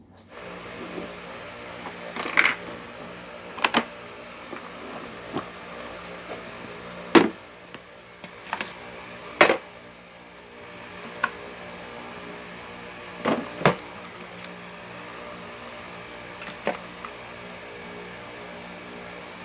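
Scattered sharp clicks and knocks of handling, coming at irregular intervals, over a steady low hum.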